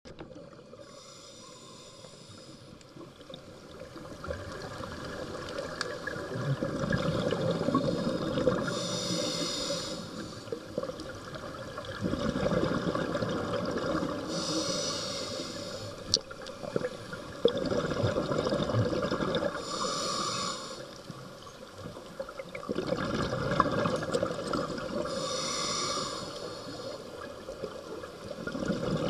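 Scuba diver breathing through a regulator underwater: a short hiss on each inhale, then a long rush of bubbles on each exhale, about every five to six seconds.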